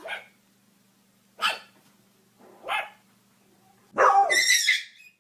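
Dog barking: three short barks spaced out over the first three seconds, then a louder, longer burst of barking about four seconds in.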